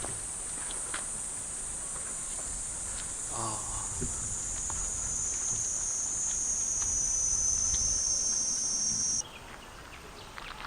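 Chorus of cicadas buzzing in a steady, shrill high-pitched drone, growing a little louder, then cutting off abruptly about nine seconds in.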